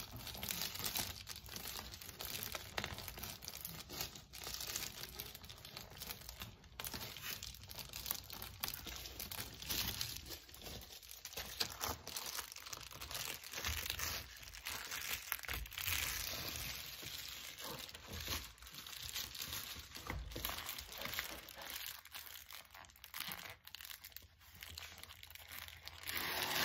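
Foil-faced bubble insulation crinkling and rustling as it is cut with scissors and pressed into a car door's window frame, with many small irregular crackles.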